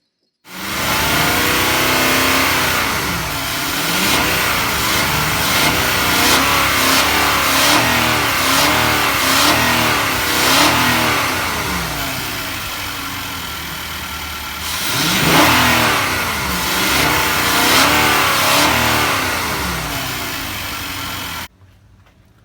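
Infiniti QX80's 5.6-litre V8 engine being revved in repeated blips, its pitch rising and falling over a steady run, breathing through the stock air filter. It starts about half a second in and cuts off suddenly near the end.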